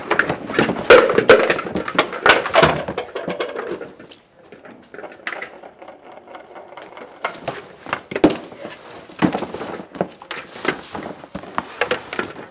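Someone rummaging through a cardboard box of odds and ends: rustling with sharp knocks and clatter as items are pulled out and dropped on a wooden floor. It comes in two bouts with a quieter lull in the middle.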